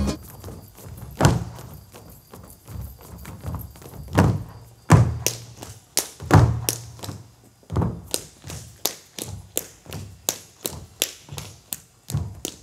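Dancers' boots stamping on the stage in a silent pentozali, the Cretan dance done without music: scattered heavy stamps at first, then a steady beat of about three a second from a little past halfway.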